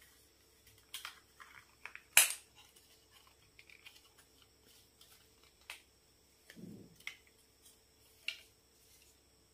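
Plastic parts of a selfie-stick tripod clicking and rattling as it is handled, with a few sharp snaps; the loudest snap comes a little over two seconds in, and there is a dull knock later on.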